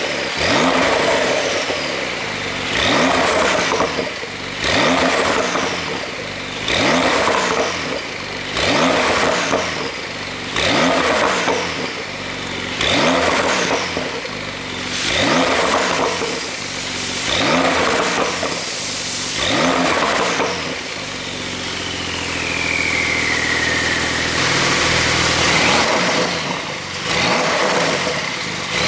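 Porsche 911 (992) Carrera S twin-turbo flat-six revving in short blips about every two seconds, each rising and falling, then held longer with a falling whine, and blipped once more near the end. The exhaust flaps are held fully open by an ECU tune that also adds overrun pops.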